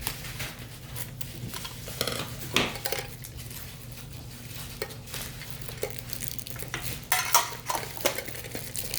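Small metal trading-card mini tins and their contents being handled: scattered clinks, taps and scraping of tin, plastic insert and coin, with the sharpest clatter about two seconds in and again around seven seconds in.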